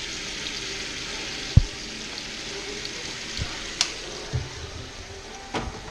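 Speckled trout fillets frying in hot oil in a pan, a steady sizzle. A few knocks and clicks sound over it, the loudest about a second and a half in.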